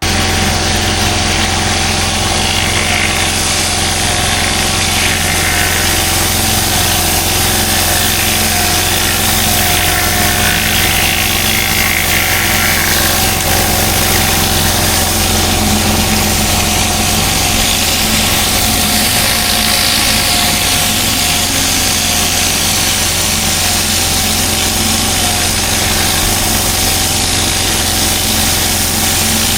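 Pressure washer cleaning block paving: a steady motor hum under the loud hiss of the high-pressure water jet, running without a break.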